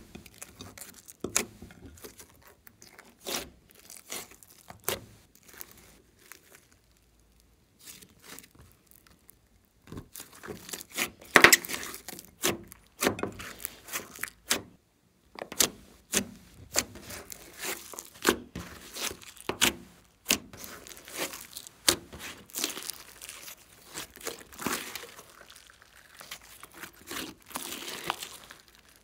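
Glossy slime being kneaded and stretched by hand: irregular sticky squelches and sharp pops of trapped air, loudest a little before the halfway point, with a short quiet pause about a quarter of the way in.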